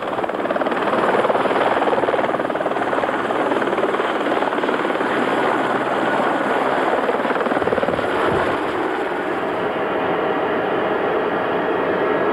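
Aérospatiale Squirrel helicopter running at lift-off power: a fast, steady blade chop with the turbine running underneath as it rises off the ground.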